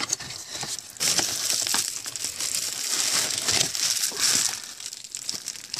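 Plastic bubble wrap crinkling and crackling as a hand grips it and lifts a bubble-wrapped item out of a cardboard box, louder from about a second in.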